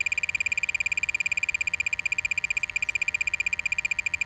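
Variotec 460 Tracergas leak detector giving its audible signal: a rapid, even train of high-pitched beeps, sounding because the probe is picking up tracer gas escaping from the leaking buried water pipe.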